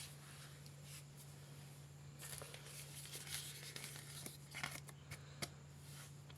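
Slime and its plastic piping bags being handled, giving sticky crackling and snapping sounds that thicken from about two seconds in, with one sharp click near the end.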